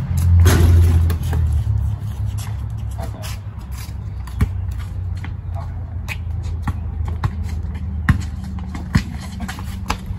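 Basketball bouncing on a concrete driveway and sneakers shuffling and scuffing as players move, with sharp bounces near the middle and twice near the end. A low engine hum, as of a passing vehicle, fades out in the first couple of seconds.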